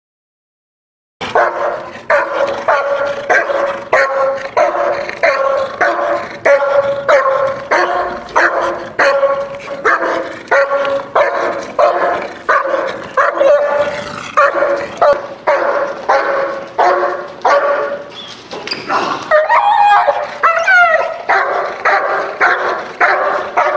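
Protection-trained dog barking repeatedly at an approaching decoy, about two barks a second, starting about a second in. Near the end the barking breaks into a brief run of high whines and yips, then picks up again.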